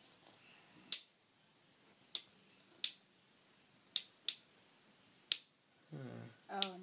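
Two spinning metal Beyblade tops clash in a plastic stadium, giving sharp clacks about seven times at uneven intervals. A brief voice sounds near the end.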